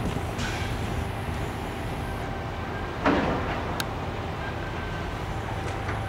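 Steady low drone of heavy scrap-processing machinery running, with a single loud clank about three seconds in.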